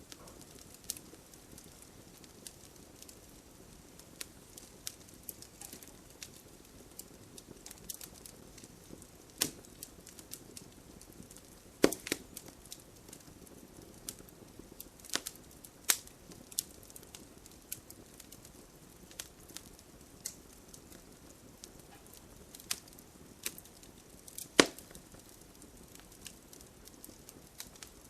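Wood campfire crackling: irregular sharp pops and snaps over a low steady hiss, with one loud pop a little before halfway and another near the end.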